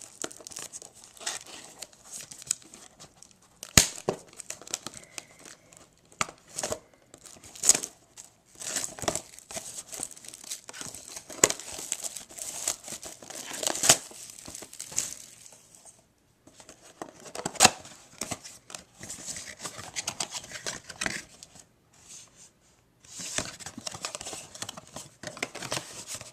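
A sealed trading-card blaster box being opened by hand: its plastic wrapping torn and crinkled off and the cardboard handled, in irregular bursts of crackling with sharp clicks and a couple of brief pauses.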